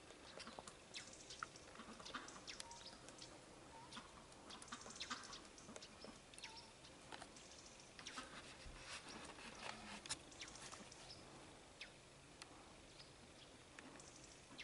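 Faint small birds calling in a tree: many short, sharp chirps at irregular intervals, some clustered close together.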